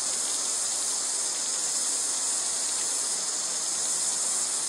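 A steady, high-pitched insect chorus drones without a break.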